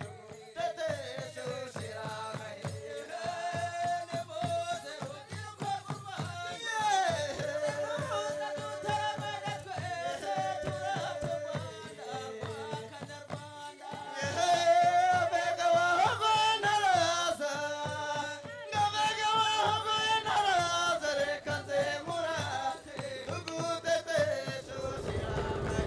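Music: a song with a singing voice over a steady percussion beat.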